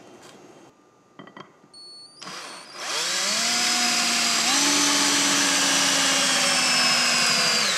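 A power drill, quiet at first with a few clicks, spins up about three seconds in, runs steadily with a step up in speed partway, then winds down near the end.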